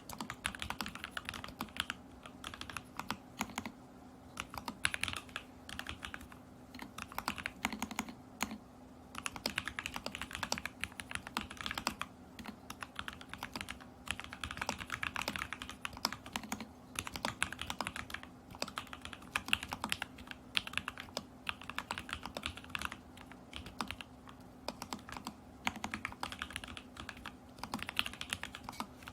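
Typing on an Alice-layout mechanical keyboard with lubed and filmed lavender switches in a stacked acrylic case, tape-modded PCB and Polycaps Whale keycaps. Keystrokes come in quick irregular bursts broken by short pauses, over a faint steady hum.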